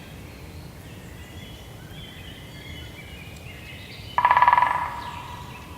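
Forest ambience with soft bird chirps, broken about four seconds in by a loud, very rapid rattling burst that fades over about a second.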